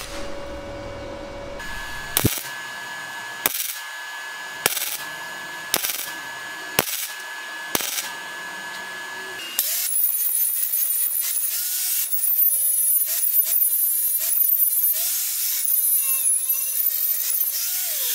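Gasless flux-core wire MIG welding in short stitches: a brief arc burst about once a second on thin steel tube. About ten seconds in, an angle grinder with an abrasive wheel takes over, grinding the weld bead continuously in sped-up footage.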